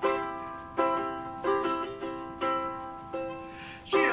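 Ukulele strummed by hand: a chord struck about every three-quarters of a second and left to ring out between strums, playing a song's intro.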